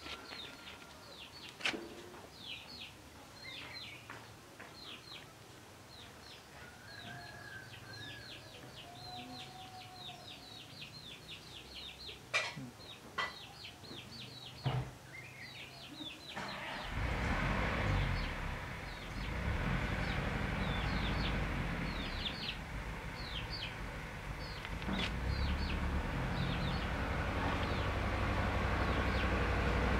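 Small birds chirping over and over in short, quick falling notes, with a few sharp clicks. About seventeen seconds in, a steady low rumbling noise starts and grows louder toward the end.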